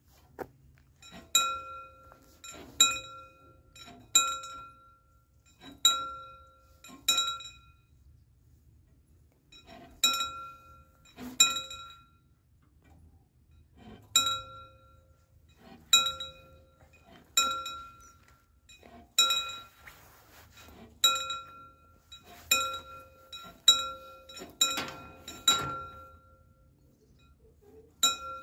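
Warning bell of a mechanical, remotely hand-cranked railway crossing barrier, ringing in single clear strikes about every second and a half while the barrier arm is lowered. There are two short pauses, and the strikes come faster and closer together near the end as the arm comes down.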